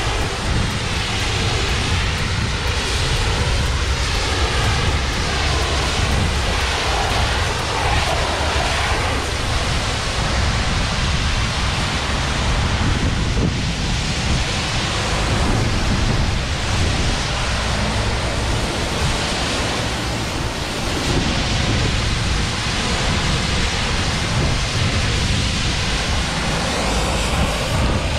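High-pressure washer lance spraying water onto a trailer's tarpaulin curtain side: a steady loud hiss of the jet with the rumble of the running pump.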